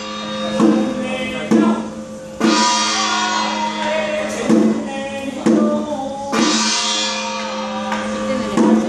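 Chinese temple ritual music for a spirit-medium trance: drum strokes about once a second with a cymbal crash every few beats, over a steady drone and a chanting voice.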